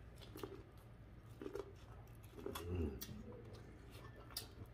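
Quiet eating sounds at a meal of crab legs: scattered mouth smacks and clicks, with a few soft, low hums.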